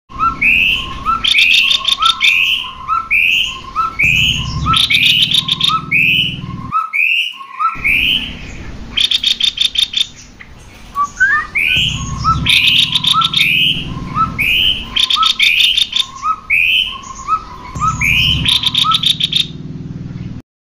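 Cucak kopi (kopi-kopi) birds singing loudly in repeating phrases: short low notes alternating with quick rising whistles, broken by bursts of rapid chattering trills. The song stops briefly about a third of the way in, then starts again, with a low rumble under some of the trills.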